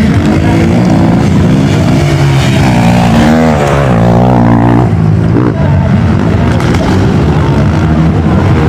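Trail dirt bike engines revving hard on a race track, pitch rising and falling quickly with the throttle; more than one bike is heard at once.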